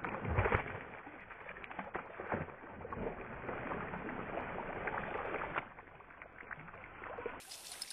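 Water splashing as a bass strikes a topwater frog lure on the surface. There is a heavy thud about half a second in, and the sound stays dull and muffled, with churning splashes that die down after about five and a half seconds.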